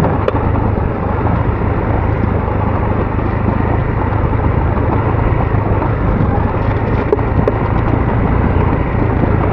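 Adventure motorcycle engine running steadily while riding an unpaved country track, with wind and tyre noise.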